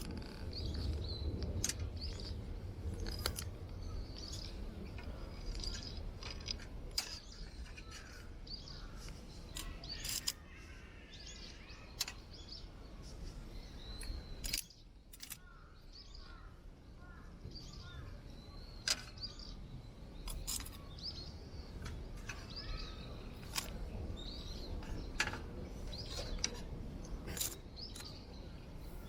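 Wind buffeting the microphone as a low rumble, heaviest in the first few seconds. Scattered sharp snaps and clicks run through it, with small birds chirping.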